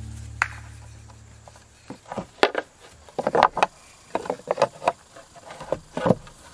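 Engineered-wood lap siding board being handled and set against the house wall: a scattered series of short knocks, taps and scrapes of board on board and on the wall.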